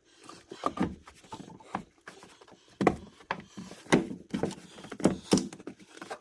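Irregular knocks and clicks of plastic parts, the coolant degas bottle and battery tray, being worked into place in a truck's engine bay.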